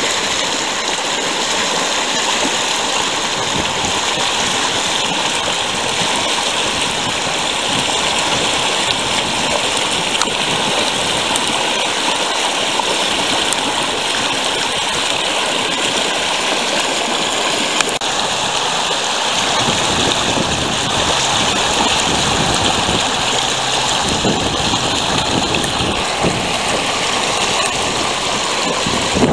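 Shallow river water running over rocks in small rapids: a steady wash of splashing water noise.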